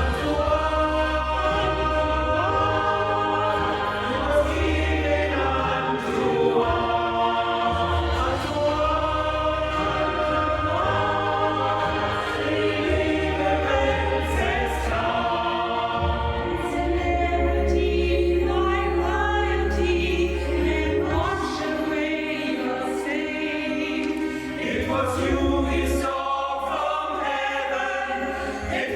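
Amateur staff choir singing, many voices together at a steady level.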